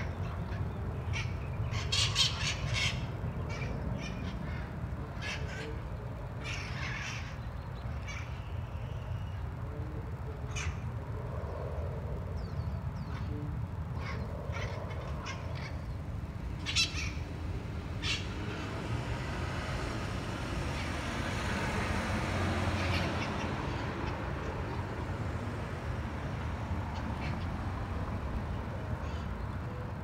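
Feral parrots squawking in scattered short calls and clusters, over a steady low rumble. A soft rushing noise swells and fades about two-thirds of the way through.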